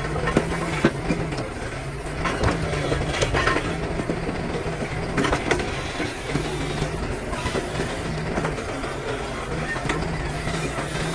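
Tracked excavator's diesel engine running steadily under load, with scattered knocks and clatter of blasted rock being moved and packed by the bucket.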